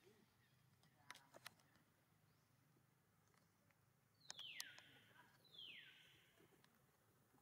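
Two high calls from an animal, each sliding sharply down in pitch, a little over a second apart. They stand out over near silence, with a few faint clicks about a second in.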